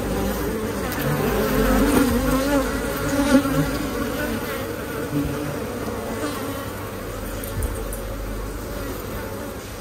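Many honeybees buzzing close by around a frame lifted from the hive: a dense hum of overlapping wingbeats with wavering pitch, easing slightly toward the end.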